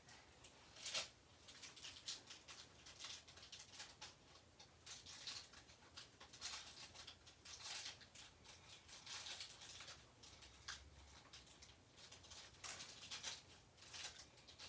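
Faint, irregular rustling and crinkling of gift packaging layers being handled and torn off.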